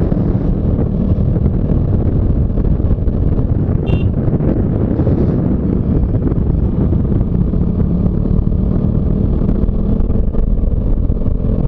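Motorcycle engine running steadily while riding, with wind and road noise rushing over the microphone.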